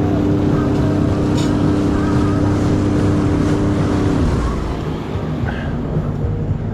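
Jet ski engine running steadily on the water, easing off a little past four seconds in, when its pitch drops.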